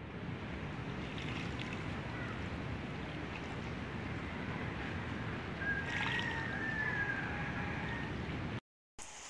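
Water poured from a plastic bucket onto loose sandy soil around a newly planted sapling, a steady trickling splash. A brief high wavering tone joins about six seconds in.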